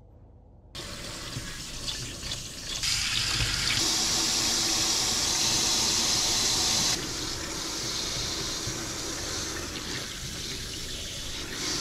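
Kitchen tap running into a stainless-steel sink while fish are scaled and rinsed under the stream. The water starts about a second in, is loudest for a few seconds in the middle, then settles to a steady, softer flow.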